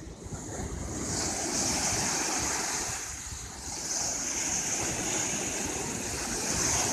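Ocean surf breaking and washing up the sand. The wash swells about a second in, eases briefly midway, and builds again as the next wave breaks.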